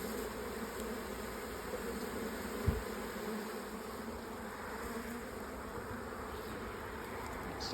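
Steady hum of honeybees swarming around a hive packed with a late swarm. A brief low thump comes a little under three seconds in.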